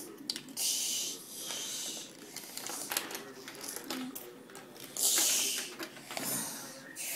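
A child making hissing blaster-shot noises with the mouth a few times during a toy battle, among small clicks and rattles of plastic Lego pieces.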